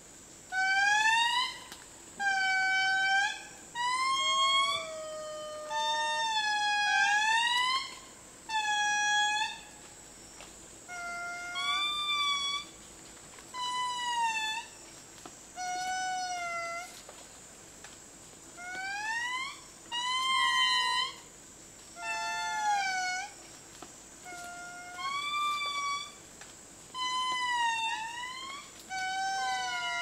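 A family group of indris singing their territorial chorus: loud, wailing notes about a second long, each gliding up or down in pitch, repeated every second or two, with several voices sometimes overlapping.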